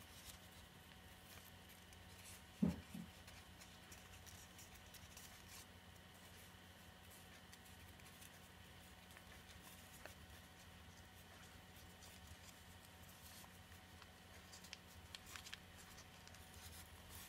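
Faint crinkling and creasing of origami paper being folded and pinched by hand, with a soft low double thump about three seconds in and a few small crackles near the end, over a faint steady hum.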